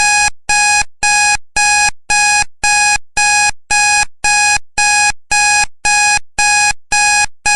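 Digital timer alarm beeping as the countdown reaches zero: a rapid, steady series of identical buzzy beeps, about two a second, starting suddenly.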